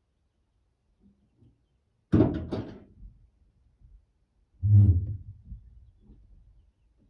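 Heavy soapstone tub being shoved into a pickup bed, heard from inside the cab: a short clatter of knocks about two seconds in, then a deeper, heavier thump near five seconds as the stone shifts against the bed.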